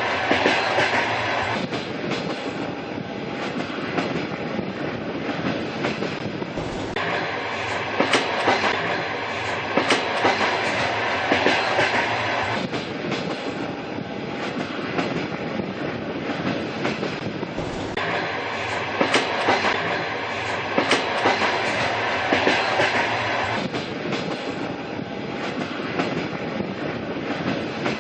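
A train running along the rails with a steady rumble, its wheels giving a recurring clickety-clack over the rail joints.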